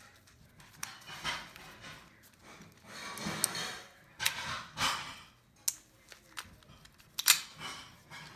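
Hi-Capa airsoft pistol being reassembled by hand, its slide fitted onto the frame: scattered clicks and sliding, handling noises, with the sharpest click a little over seven seconds in.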